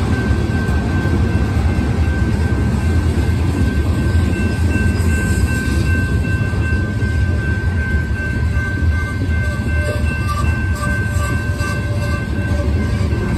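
Freight train cars rolling past: a steady low rumble of wheels on rail, with a thin steady high-pitched tone above it.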